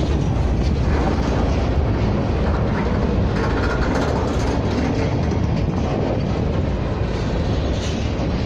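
Empty crude-oil tank cars of a freight train rolling past at close range: a steady rumble of steel wheels on rail with light clatter.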